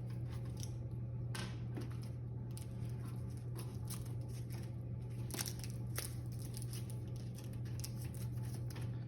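Scattered light clicks and short rustles from a Cooler Master Q300L PC case's panels and thumb screws being handled, over a steady low hum.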